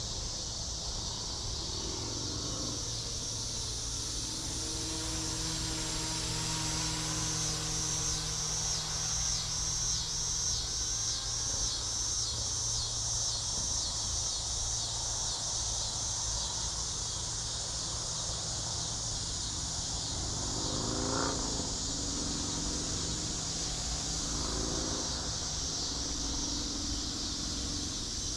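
Insects, crickets, chirring in a steady high chorus that pulses rapidly, over a low steady hum.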